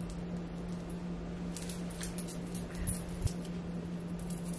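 Faint metallic clinks and jingles of a charm bracelet and chains shifting as the hands move at the hairline, in scattered clusters, over a steady low electrical hum.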